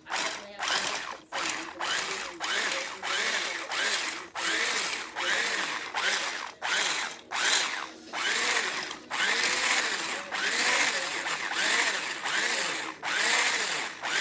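Electric stick blender with a wire whisk attachment whisking dry bath bomb powder in a bowl. It starts suddenly and runs in repeated short pulses, roughly one to two a second, the motor note rising and falling with each pulse.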